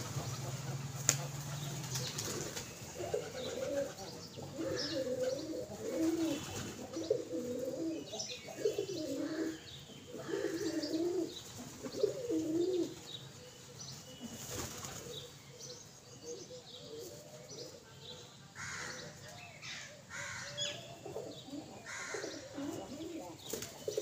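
A flock of domestic pigeons cooing, with bursts of wing flapping as birds flutter in around the feeding hand. The cooing is thick from about three seconds in to about halfway, thins out, then comes back near the end.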